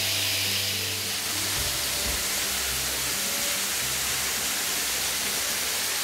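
Small waterfall running: a steady rushing hiss of water falling onto rock.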